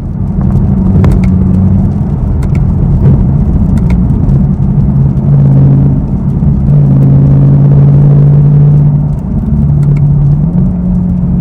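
A V8 car's engine and exhaust running while driving, a loud low drone whose pitch drops about halfway through and rises again near the end.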